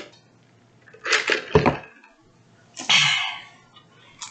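A person drinking through a straw from a plastic cup: two short noisy bursts, about a second and about three seconds in, the first ending with a low knock.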